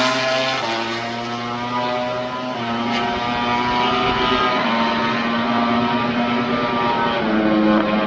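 MotoGP racing motorcycle engine running at high revs. Its pitch holds steady, drops in steps about half a second in and again about two and a half seconds in, and rises near the end.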